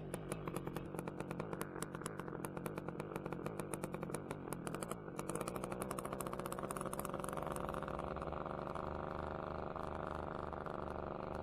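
Air Conception Tornado 280 two-stroke paramotor engine idling with an even, slow putter, then picking up speed about five seconds in and running on at a steady, higher speed.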